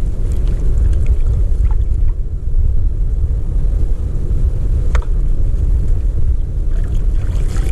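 Wind buffeting the microphone over choppy sea water: a loud, steady, low rumble, with a faint click about five seconds in.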